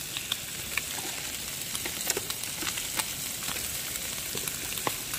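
Bacon frying in a pan on a gas camping stove: a steady sizzling hiss with scattered small pops and crackles of spitting fat.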